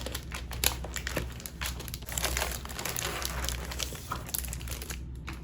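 Plastic packaging or a protective sleeve being handled and crinkled, with dense irregular crackling throughout.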